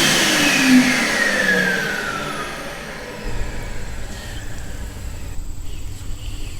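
Sensor-activated electric hand dryer running with a loud whir, its motor whine falling in pitch and fading over about two seconds as it winds down.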